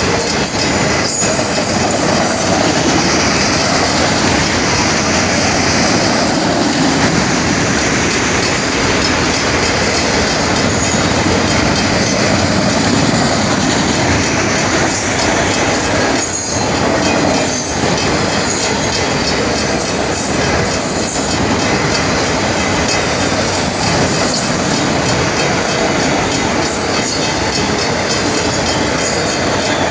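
Train rolling past a grade crossing at close range, its wheels clattering and squealing on the rails in a steady, loud passage. The crossing's mechanical bells ring over it.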